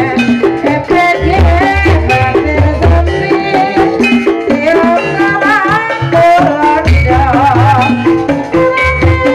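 Live Javanese gamelan music accompanying an ebeg horse dance: a melody of stepped metallophone notes over deep kendang drum strokes, with a wavering high melody line above.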